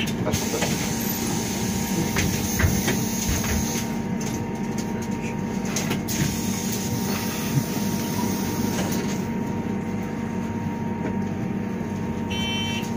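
Steady hum inside an Ursus CS12E electric bus standing still, with a faint steady tone and a few light knocks about two to three seconds in.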